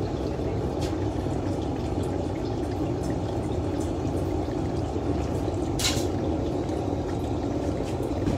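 Gas burner of a portable mini glass furnace running steadily with a low rushing noise, its glory hole firing while glass is heated on a blowpipe. A single sharp clink about six seconds in.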